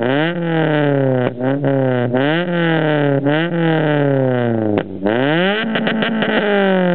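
Honda Civic VTEC four-cylinder revved in repeated quick throttle blips through a 76 mm exhaust with an HKS dual muffler, its silencer insert removed. Each blip rises sharply and falls back. Near the end a rapid crackle comes as the revs drop.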